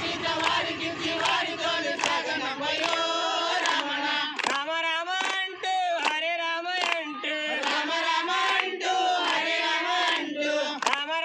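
A group of men and women singing a devotional bhajan together in unison, with hand-clapping in time, about one and a half claps a second.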